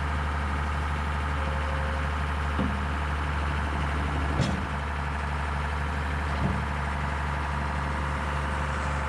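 Tractor engine idling steadily, with a few short knocks about two and a half, four and a half and six and a half seconds in.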